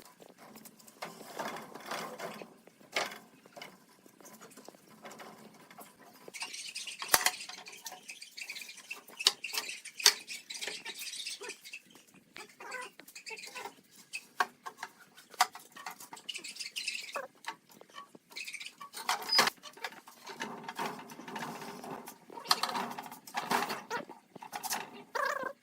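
Irregular small clicks, taps and knocks of hand work with tools and wood, with a few seconds of scraping hiss about six seconds in.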